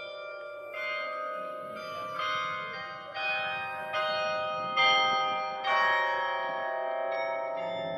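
Hand-played carillon bells of the Berlin Tiergarten carillon ringing a slow melody: one bell struck about every second, each ringing on under the next, the loudest strike a little past the middle.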